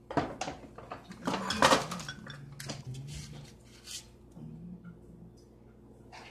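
A spoon clinking and scraping against the bowl and metal muffin tin as batter is scooped into paper muffin cups. The clinks come in a quick cluster, loudest about a second and a half in, and grow sparse after about four seconds.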